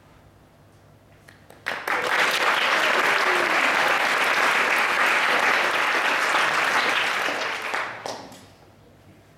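Audience applauding: clapping breaks out suddenly about two seconds in, holds for around six seconds, then dies away.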